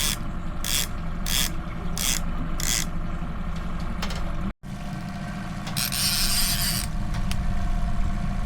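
Boat motor running steadily at trolling speed, with a regular mechanical clicking about every two-thirds of a second. About halfway through, the sound cuts out briefly, then the motor hum carries on and a scraping hiss lasts about a second.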